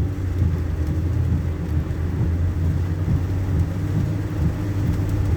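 Car running, heard from inside the cabin: a steady low engine and road hum with no sudden sounds.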